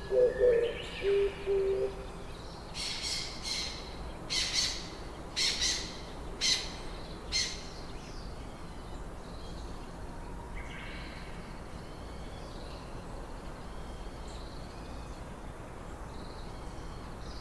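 Birds calling: a few low repeated hooting calls in the first two seconds, then about six short, sharp high calls between about three and seven and a half seconds in, then only faint chirps over a steady background hiss.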